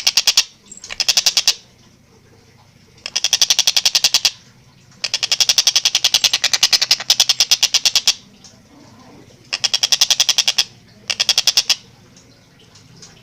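Stork-billed kingfisher (tengkek buto) giving its rapid cackling call: bouts of fast, evenly repeated harsh 'kak' notes, about ten a second. Six bouts come in turn, the longest about three seconds, with short pauses between them.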